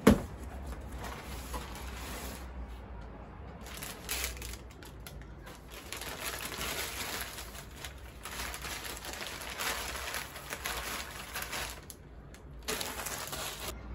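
Paper flower wrapping rustling and crinkling as a bouquet is unwrapped by hand, in uneven spells, busiest in the middle; a sharp knock at the very start.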